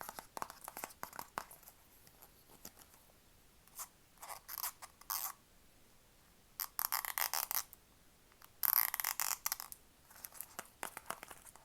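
Close-miked tapping and scratching on small objects: scattered light clicks, and three short bursts of scratchy rattling about four, seven and nine seconds in.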